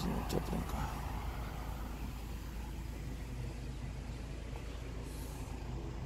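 Truck's diesel engine idling steadily with a low rumble, with a short soft hiss about five seconds in.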